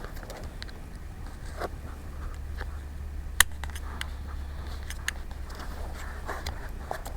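Small clicks and light scrapes of tiny parts and tools being handled inside an opened iPhone 5 while a small hinged bracket over the camera is worked into place, with one sharper click about halfway through. A low steady hum lies underneath.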